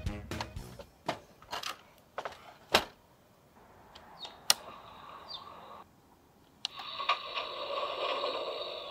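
Sharp plastic clicks of a toy train-station control panel's slide switch and buttons being pressed, then, about seven seconds in, the toy's small speaker starts a steady electronic sound with a few held tones.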